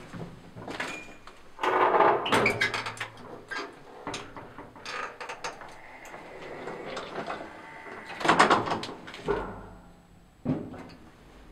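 Handling noises: a run of knocks, clicks and rattles, as of a door or cupboard being opened and closed, loudest about two seconds in and again past eight seconds.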